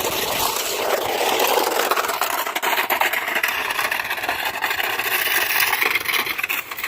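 Plastic casing of an old VHS or DVD player scraping along the ground as it is dragged: a continuous rough rasp.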